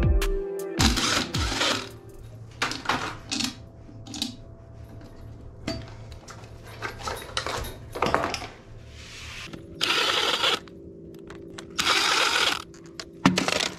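Short bursts of a Craftsman cordless drill driving screws into a box mounted on a concrete wall, between clicks and handling noise. Background music stops about a second in.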